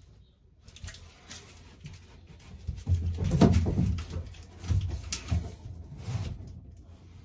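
Rustling and knocking as a sheet of foil-faced insulation is handled and pushed up against the aluminium ceiling frame, loudest about three and a half seconds in.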